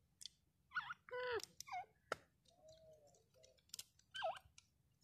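Caged grey francolins (teetar) giving soft calls: a string of short squeaky notes that bend up and down in pitch, with a lower, drawn-out note in the middle. A few sharp clicks fall between the calls.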